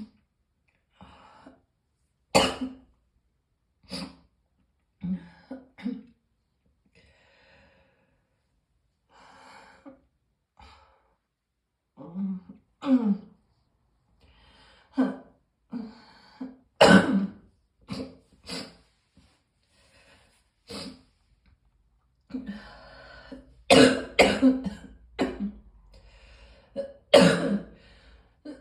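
A person coughing over and over in short separate coughs, with throat clearing and breaths in between: a morning cough. The coughs grow louder and come in quicker runs in the last few seconds.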